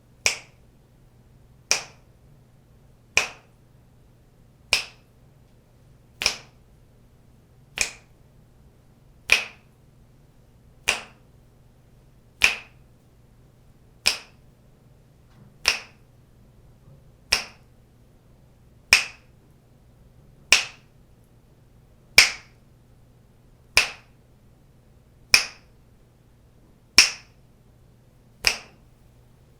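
A single person's fingers snapping, one crisp snap about every second and a half at an even pace, nineteen snaps in all, over a faint steady low hum.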